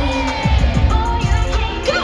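Live pop music with a heavy, regular bass beat and singing, with a rising sweep near the end.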